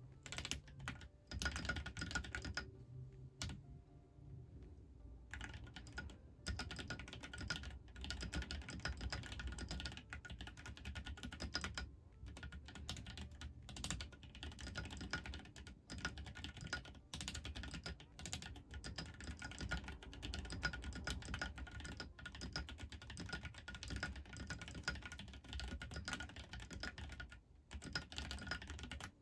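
Typing on a Keychron mechanical keyboard: a fast, steady run of keystroke clacks, with a pause of about two seconds a few seconds in.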